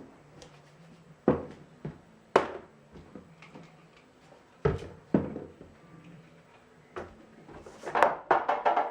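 A series of separate household knocks and thumps in a small room, like doors, drawers or cupboards, then a quick run of clattering strikes near the end.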